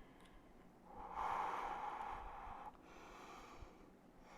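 A woman's long, breathy exhale, starting about a second in and lasting just under two seconds, as she breathes through the strain of holding a plank.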